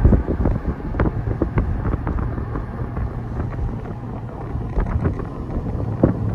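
Car being driven: steady low road and engine rumble from inside the cabin, with wind buffeting the microphone and a few short knocks.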